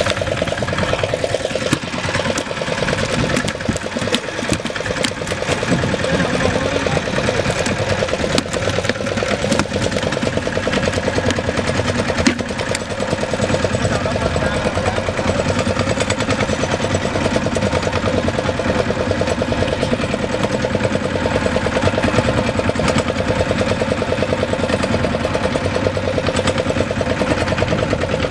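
Fishing boat's engine running steadily, with occasional sharp knocks over it.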